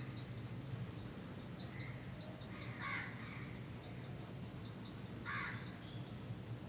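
A crow cawing twice, a few seconds apart, over a low steady hum.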